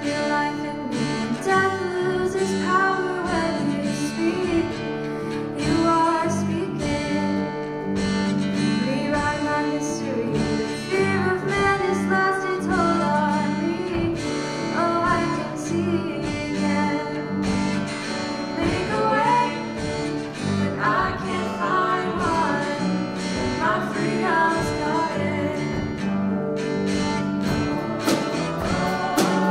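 Small live band playing a song: several voices singing over strummed guitars, keyboard and a drum kit keeping a steady beat.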